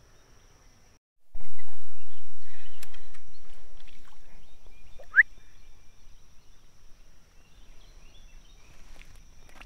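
Noise while a small smallmouth bass is reeled in and swung out of the water from a kayak: a low rumble that starts abruptly about a second in and slowly fades, with a short rising squeak about five seconds in.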